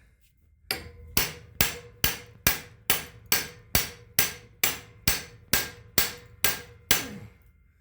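Steady hammer blows on metal, about fifteen strikes at roughly two a second, each with a short metallic ring, driving out a seized part of a Subaru Impreza's rear brake caliper bracket.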